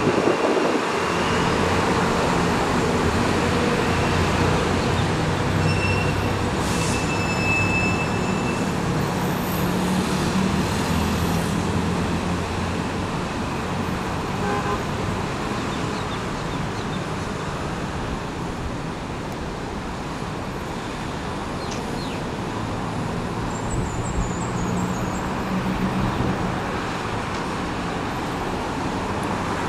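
Steady city road traffic noise, with vehicle engines running throughout.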